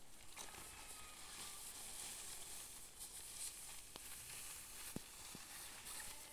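Nylon tent fabric rustling as it is unfolded and stretched out by hand, a soft fluctuating hiss, with a couple of light clicks near the end.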